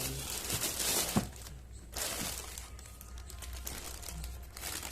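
Packaging crinkling and crackling as it is handled and opened. The crinkling is heaviest in the first second, ends with a sharp click, and comes back in shorter spells later.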